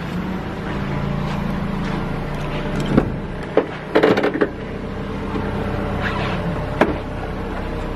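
Steady low hum of the Toyota RAV4 idling, with sharp clicks about three seconds in and a short clatter about four seconds in as the side-hinged rear door is unlatched and swung open, and one more click near the end.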